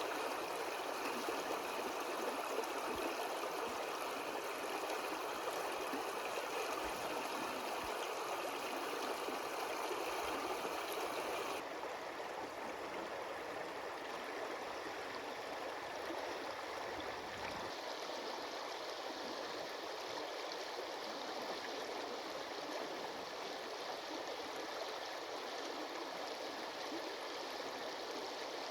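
Water flowing in a stream, a steady rushing babble. About eleven and a half seconds in it changes abruptly to a duller, softer flow.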